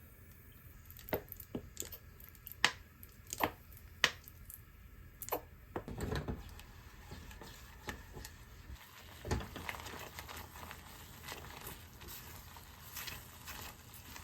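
Kitchen handling sounds: a series of sharp clicks and taps of utensils on cookware in the first few seconds, then soft squishing and rustling of food, with a dull knock about nine seconds in.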